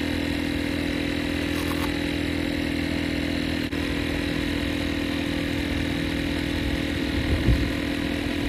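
A steady engine drone holding one pitch, like a motor idling, with two faint clicks.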